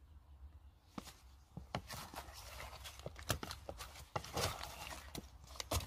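Faint, irregular soft clicks and taps from salted fish pieces being handled in a plastic container of brine.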